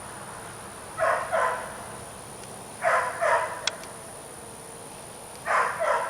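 A dog barking in quick doubles: three pairs of short barks, about two seconds apart.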